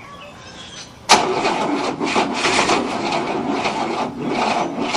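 The 1967 Cadillac's V8 is cranked by its starter motor. The cranking kicks in suddenly about a second in and goes on in a slow, rhythmic pulse without the engine catching, a sign that the weak battery is not spinning it fast enough to start.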